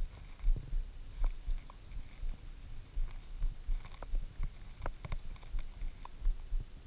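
Uneven low rumbling from wind and lapping water around a float tube on a choppy lake, with scattered small clicks as a spinning reel is cranked in.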